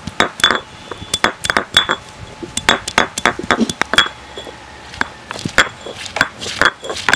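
Turmeric being crushed with a stone roller on an ammi grinding stone: a run of sharp stone-on-stone clinks and knocks, several a second and irregular, some with a brief ring.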